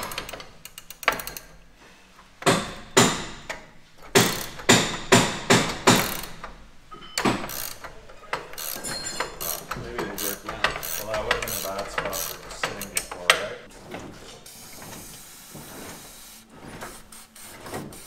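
Ratchet wrench clicking and metal knocks as bolts are tightened on an old combine, in quick irregular strokes for the first several seconds, then quieter tool handling.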